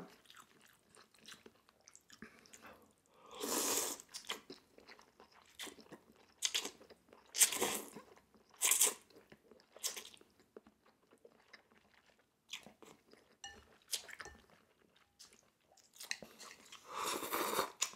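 Close-miked eating: Korean potato noodles slurped in several short bursts, with quieter chewing and mouth sounds in between, and a slurp from a small bowl near the end.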